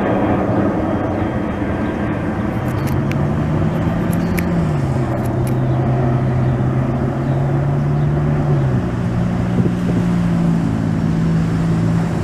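Jet airliner taking off, its engines making a loud steady roar. Under it, a low hum drops in pitch about halfway through and rises again near the end.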